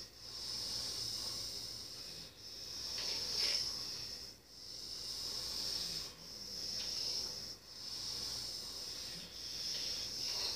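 A sleeper's breathing, heard as a soft hiss that swells and fades in regular surges about every one and a half to two seconds.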